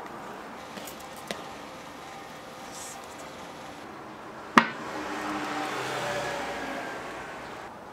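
A single sharp knock about four and a half seconds in, the loudest sound, followed by a swell of noise with faint falling tones that builds and fades over a few seconds, over a steady background hum.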